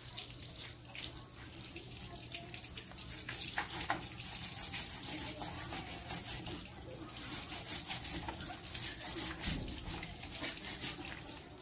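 Garden hose water running and splashing onto a scooter's rear wheel and underside and onto wet concrete, a steady spatter of rinse water.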